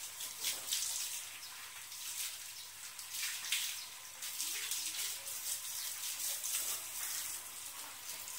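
A garden hose spraying water onto a motor scooter's bodywork, a hissing splash that swells and eases as the stream is moved over it.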